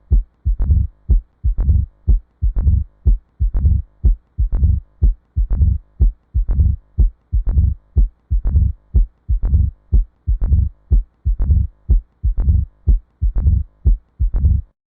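Human heart sounds recorded through a stethoscope: a regular lub-dub rhythm of short, low thumps.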